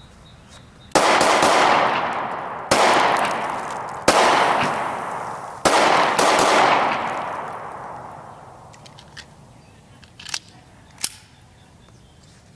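A Smith & Wesson Shield 9mm pistol fired in a string of shots over about five seconds, drawn from an inside-the-waistband holster, each report trailing off in a long rolling echo. A couple of small sharp clicks follow near the end.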